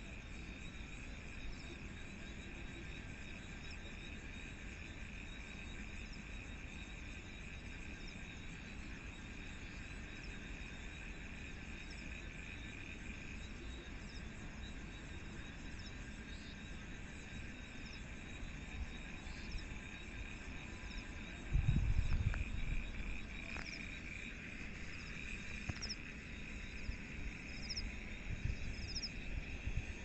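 Night chorus of crickets and other insects, a steady high trilling with short higher chirps scattered through it. A brief low rumble about two-thirds of the way through is the loudest moment.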